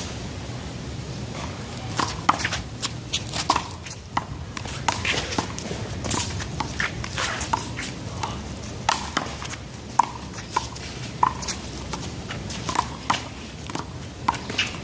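One-wall handball rally: a small rubber ball is slapped by hand and smacks off the wall and pavement in irregular sharp impacts, with footsteps scuffing between hits.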